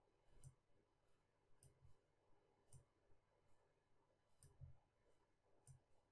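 Faint computer mouse clicks, about seven at irregular spacing, some in quick pairs, as brush strokes are drawn on screen.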